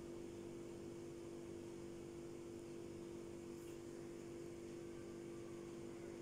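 Faint steady electrical hum over a light hiss, one unchanging tone with weaker tones around it.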